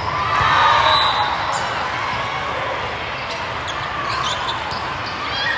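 Busy volleyball tournament hall: scattered sharp thuds of volleyballs being hit and bouncing on the courts, over a steady din of players' and spectators' voices, with a loud shout or cheer about half a second in.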